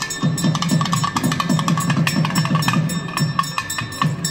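Fast, steady drumming of temple festival music, many strokes a second, with a steady high tone held above it.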